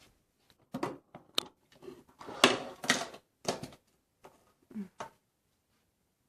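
Handling noise: irregular clicks, knocks and rustles, the loudest about two and a half seconds in, stopping a little after five seconds.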